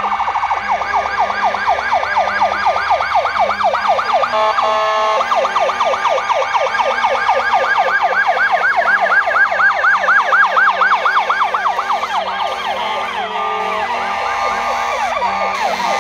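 Several emergency-vehicle electronic sirens sounding together, the loudest in a fast yelp that rises and falls about four or five times a second. Near the end the yelp gives way to steadier overlapping siren tones.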